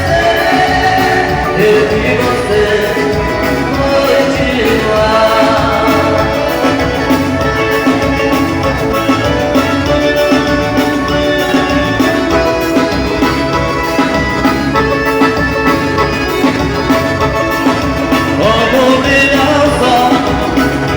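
Forró music from a band, with a steady beat.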